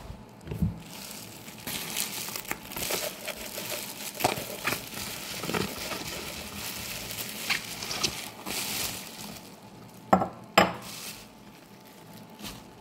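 Plastic bubble wrap crinkling and rustling as it is pulled off a lead crystal pint glass. Near the end come two sharp knocks, the loudest sounds, as the heavy glass is set down on a marble tabletop.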